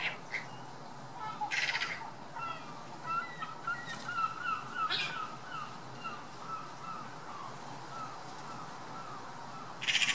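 Eurasian magpie giving its harsh rattling chatter, once about a second and a half in and again at the end. In between, a quieter run of short chirping notes from another bird.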